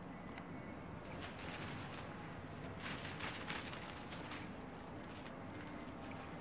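Soft rustling and light scratchy clicks from kittens shifting and pawing on a cloth-covered bench, in short bunches that are loudest about three seconds in, over a steady low room hum.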